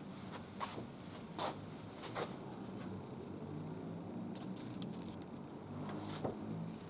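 Wood fire crackling in a barbecue grill, with a few sharp pops scattered over a steady low background.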